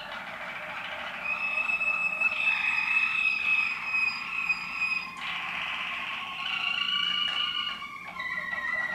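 Waterslager song canary singing: long held whistled notes, a change of phrase about five seconds in, a fast stuttering run near seven seconds, then a slowly falling note near the end.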